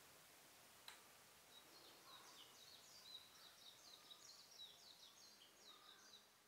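Faint bird song: a quick run of short, high, falling chirps lasting about four and a half seconds over a quiet outdoor background, with a single soft click about a second in.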